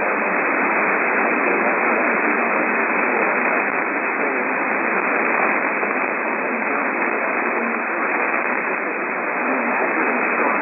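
Steady radio static hiss, thin and even, with no tones or breaks.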